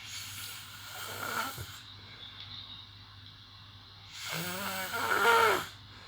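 A sleeping person snoring: two snores, the second starting about four seconds in and louder, with a wavering pitch.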